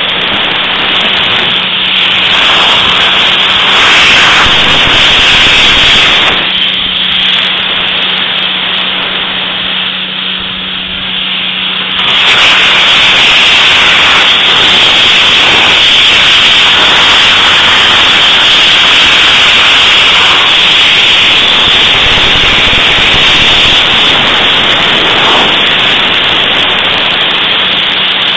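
Vapour blasting gun spraying a loud, steady hiss of air and water-borne abrasive onto metal brake parts, with a steady low hum underneath. The hiss drops for several seconds about a quarter of the way in, then comes back at full strength.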